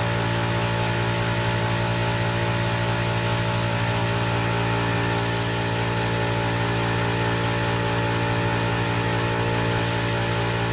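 Air-powered paint spray gun hissing in several bursts as clear coat is sprayed, the bursts starting and stopping from about halfway in, over a loud steady machine hum.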